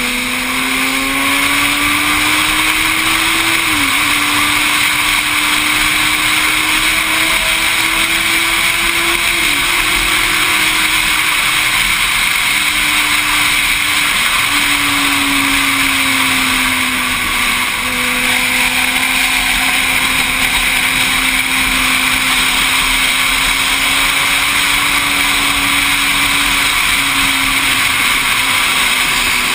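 Motorcycle engine running hard at speed under heavy wind rush on the microphone. The engine note holds fairly steady, dipping briefly a few times.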